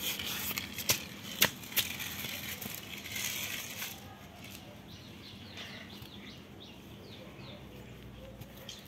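Small plastic toy fire truck pushed and rolled on concrete: a scratchy scrape of its wheels with a few sharp clicks of plastic against the ground in the first few seconds, then fainter.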